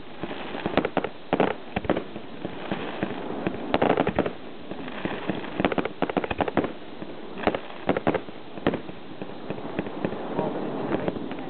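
Fireworks going off: an irregular series of sharp bangs and crackles, some packed into quick rattling clusters, from low bursts and crackling stars. The loudest reports come about four seconds in and again about seven and a half seconds in.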